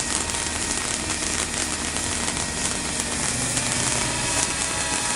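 Ground firework fountain spraying sparks: a steady hiss with dense crackling.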